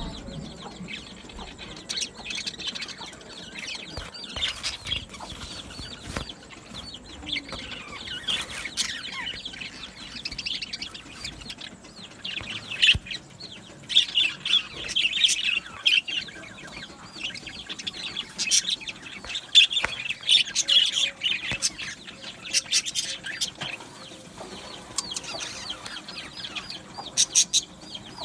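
A flock of budgerigars chattering and chirping together, many birds at once, with louder bursts of chirping in the middle and scattered sharp clicks.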